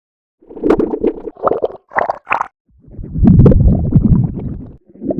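Stomach growl sound effect played in altered versions. A gurgling growl starts about half a second in, then come short gurgles shifted higher in pitch near two seconds in. A louder, deep, low-pitched rumbling growl lasts about two seconds near the end.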